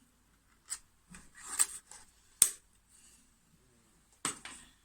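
Ring-pull lid of a metal food tin being pulled open: a few sharp metal clicks with scraping as the lid peels back.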